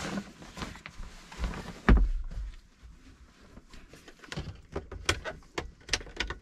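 Knocks and clicks of a camper van's fold-down bunk board and its fittings being handled, with one loud low thump about two seconds in as the board comes down, then a run of sharp clicks near the end.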